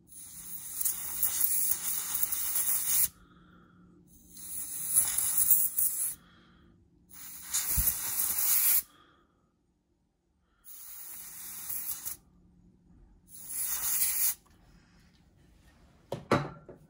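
Five bursts of compressed air from a can of air duster through a thin red extension straw, hissing as they blow grime out of a small caged ball bearing from a knife pivot. The first burst lasts about three seconds; the later ones are shorter, with brief pauses between.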